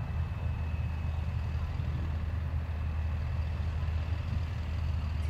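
Engine of a vintage ex-military truck running steadily as the truck drives slowly over grass, a constant low rumble.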